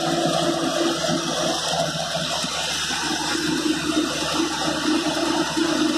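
GD180C-LS horizontal directional drilling rig running close by: a steady rushing engine noise with a low hum under it that fades about a second and a half in and returns about two seconds later.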